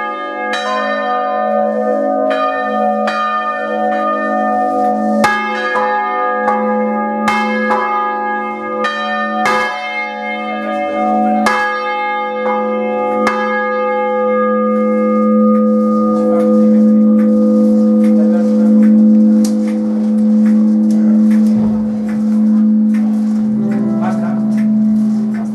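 Three swinging bronze church bells, heard close up in the bell chamber: clapper strikes come about once a second for the first half, then thin out and stop as the ringing winds down. The bells go on humming, a deep steady tone from the largest bell with higher overtones above it.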